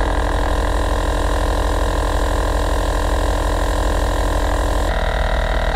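Battery-powered onboard air compressor switching on suddenly and running with a loud, steady motor hum on its first test run after installation, working as it should. Its tone changes about five seconds in.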